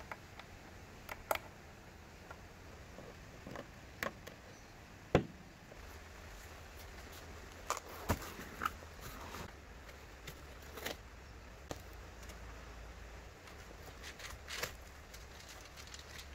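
Scattered light clicks and taps of objects being handled, irregular, with a sharper knock about five seconds in. A low steady hum comes in about six seconds in.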